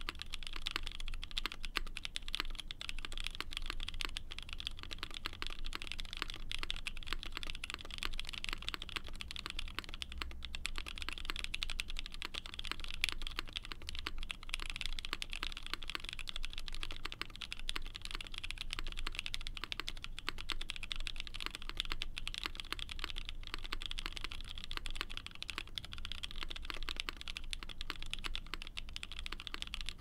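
Continuous typing on a Keycult No.1/65 mechanical keyboard in black brass with a polycarbonate half plate, GMK keycaps and lubed Black Cherry Pie frankenswitches (Cherry top, Cream stem, Alpaca bottom, 55 g springs): a dense, steady stream of keystrokes with no pauses.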